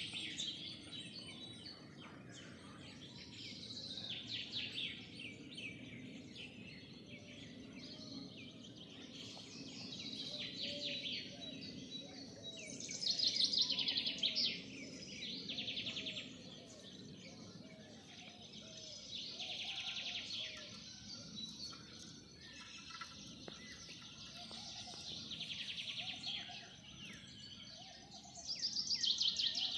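A pet parrot calling in repeated bursts of rapid, high chirps, loudest about thirteen seconds in and again near the end.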